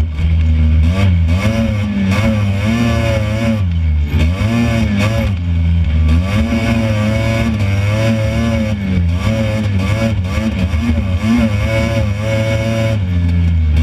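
Honda FL400R Pilot off-road buggy's single-cylinder four-stroke engine running under load, its pitch rising and falling every second or so as the throttle is worked over the sand.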